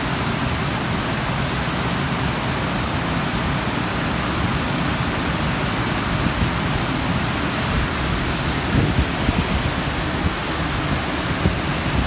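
Heavy floodwater pouring over a reservoir's curved spillway weir: a steady, even rush of falling water.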